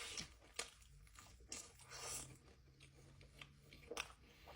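Close-up mouth sounds of someone chewing a bite of cheesy pan pizza: soft, intermittent wet chewing with a few faint crunches, quiet overall.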